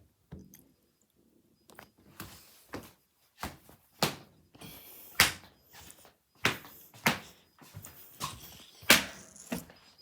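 An irregular series of sharp knocks and thuds, about a dozen, the loudest near the end, with a faint high steady tone coming and going.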